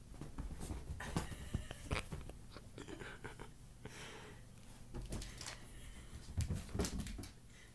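Irregular rustling and soft thumps of a kitten scrambling and pouncing on a bed blanket, mixed with handling noise from the moving camera. The sounds are busiest about a second in and again near the end.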